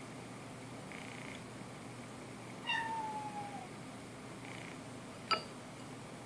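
A house cat meows once, a single call about a second long that falls slightly in pitch, a few seconds in. Near the end comes one sharp clink with a brief ring from the pint glass as the cat's paw knocks the ice cube inside it.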